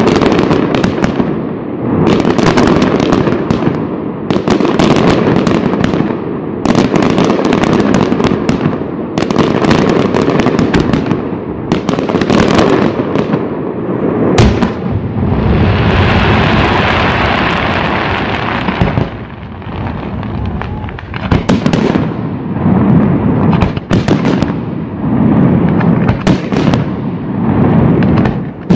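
Aerial fireworks shells bursting in a rapid, continuous barrage of sharp bangs. A few seconds of steady hissing come about halfway through, then dense bangs resume.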